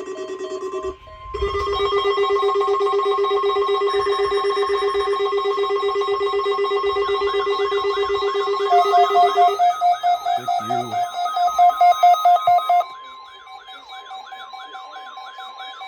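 Several weather alert radio receivers sounding their alarms together: loud, rapidly pulsing electronic beeps at more than one pitch, joined about seven seconds in by warbling siren-like tones. About thirteen seconds in the loud beeping cuts off, leaving one steady tone under the warbling.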